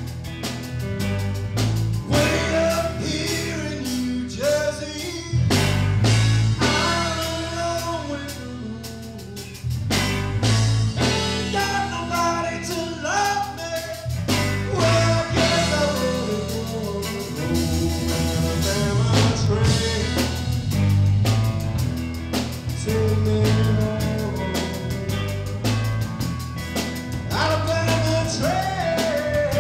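Live blues band playing: a male singer's voice over electric guitar and drum kit.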